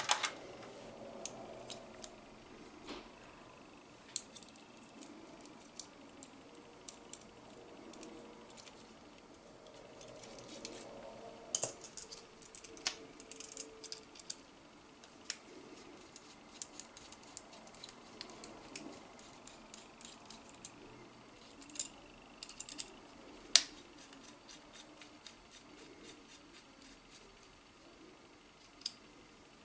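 Faint, scattered clicks and light rattles of small M4 screws and metal parts being handled: screws picked out of a plastic parts tray and turned with a small screwdriver into a metal robot-kit bracket.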